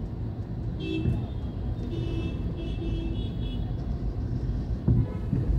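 Road traffic noise from a moving vehicle: a steady low rumble, with a few brief high-pitched tones about a second in and again between two and three and a half seconds in.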